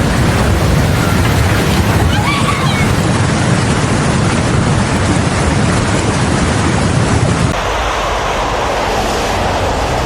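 Floodwater rushing in a loud, steady roar, with wind buffeting the microphone. About seven and a half seconds in the sound changes abruptly and loses its deep rumble.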